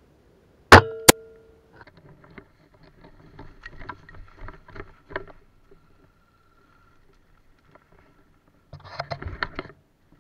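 A spring-powered JG BAR10 bolt-action airsoft sniper rifle, upgraded with an M150 spring, fires once about a second in: a sharp crack with a ringing spring twang that fades, and a second click right after it. Small clicks and rustles of handling follow, and near the end a burst of rustling and crackling through dry grass and brush.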